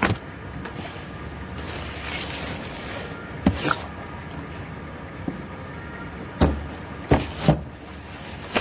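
Handling noise from a phone camera being moved and set in place on a table: a knock at the start, two more about three and a half seconds in, and three close together near the end, over a steady background hiss.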